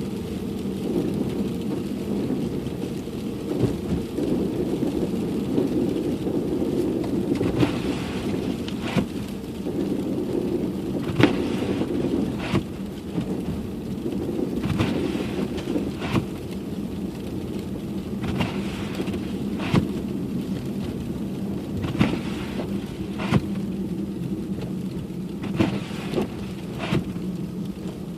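A car driving on snowy roads, heard from inside the cabin: a steady low rumble of engine and tyres. After the first quarter or so, pairs of short knocks repeat every few seconds.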